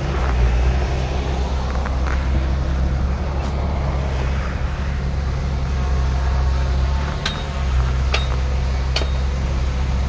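Heavy earthmoving machine's diesel engine running steadily with a deep, even drone, with a few short sharp clicks in the last few seconds.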